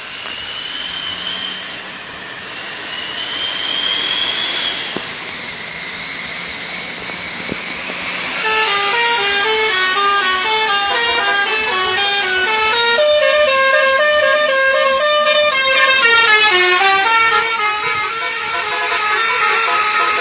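A Sri Lankan bus's musical horn plays a fast tune of quickly stepping notes. It starts about eight seconds in and keeps going, over road and engine noise. Before it, two short rising whistling tones sound.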